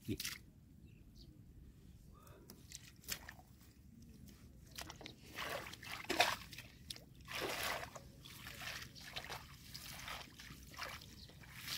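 Shallow rice-field water sloshing and splashing in short, irregular bursts as hands work through it, faint at first and busier from about five seconds in.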